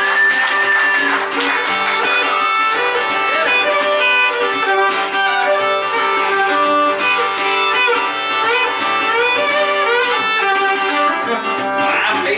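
Instrumental intro of a country song: a fiddle plays the melody with long held and sliding notes, opening on a high held note, over strummed acoustic guitar.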